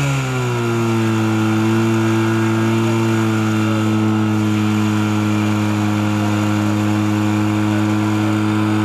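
Portable fire pump's engine running hard, its pitch dropping in the first second and then holding steady as it supplies water to the laid-out hose line.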